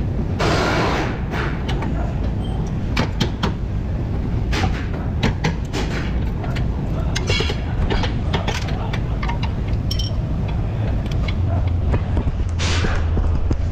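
Irregular metallic clicks, knocks and clinks of hand work on a car's front suspension at the wheel hub and strut, over a steady low hum. A brief rush of noise comes about half a second in and again near the end.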